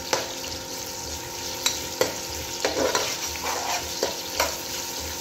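Onions frying in oil in a cooking pot, a steady sizzle while a spoon stirs them, knocking and scraping against the pot several times.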